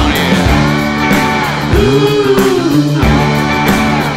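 Rock music with a guitar, its notes bending and sliding in pitch.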